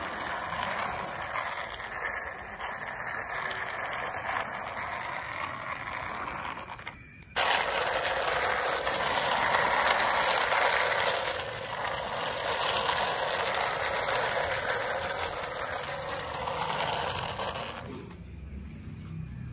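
Plastic toy auto-rickshaws pushed by hand along a road surface, their wheels and gearing giving a steady whirring rattle. It cuts out briefly about seven seconds in, then carries on until a couple of seconds before the end.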